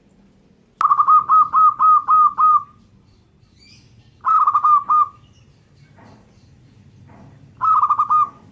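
Zebra dove (perkutut) singing: three bursts of quick, rolling coos, the first about seven notes long and the next two shorter.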